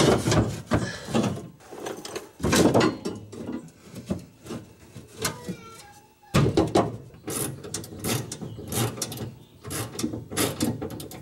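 Irregular metal knocks, clanks and scrapes of hand work under a truck as a fuel tank and its mounting straps are fitted back into place.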